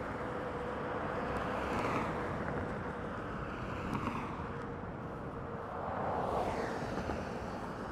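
Riding a Segway GT2 electric scooter at about 13 mph: wind rushing over the microphone and tyre noise, with a faint steady whine. The rush swells briefly twice.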